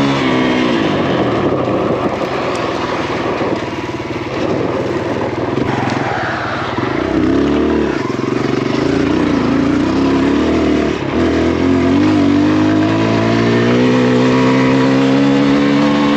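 Kawasaki KLX140RF dirt bike's single-cylinder four-stroke engine under way, its pitch rising and falling with the throttle, dipping about halfway through, then climbing steadily as it accelerates near the end.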